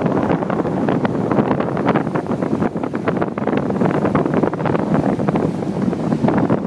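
Strong wind buffeting the microphone, a loud gusting rumble with rapid irregular flutter.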